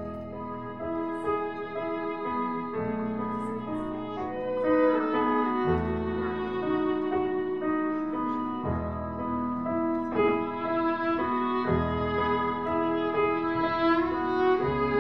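Violin playing a slow melody in long bowed notes, with piano accompaniment whose deep notes change about every three seconds. The music grows a little louder about five seconds in.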